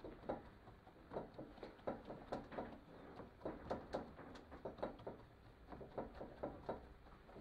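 A damp sponge wet with methylated spirits dabbed repeatedly against a painted board: a string of soft, irregular pats, about three a second.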